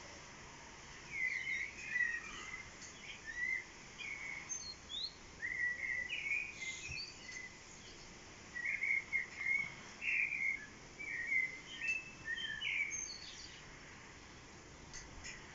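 A songbird singing in two spells of quick, short chirps and warbles, the first starting about a second in and the second about eight seconds in, over a steady faint background hiss.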